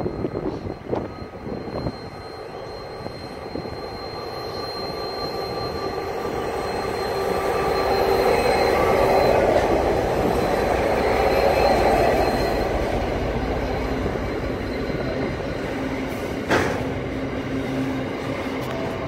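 Aurizon diesel-electric freight locomotives hauling empty coal wagons pass close by. The engine sound grows to its loudest about 8 to 12 seconds in, with a thin, steady, high wheel squeal, and then the wagons roll by. There is a single sharp clank near the end.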